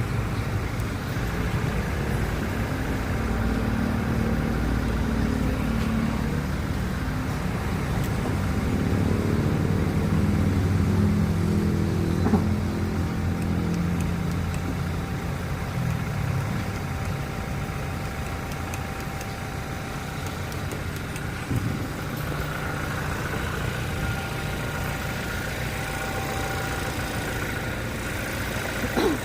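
Car engine running, its pitch rising and falling over the first half, then steadier.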